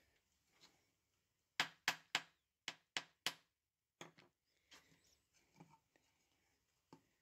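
Six sharp taps in two quick sets of three on scored float glass, made with a wheel glass cutter to run the crack along the score line. Softer clinks and scrapes follow as the broken pieces of glass are eased apart on a plastic cutting mat.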